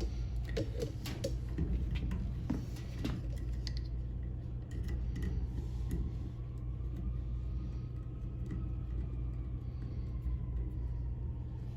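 A few light clicks and rattles in the first few seconds as a multimeter test lead is handled and landed on a pressure switch's screw terminal, over a steady low hum.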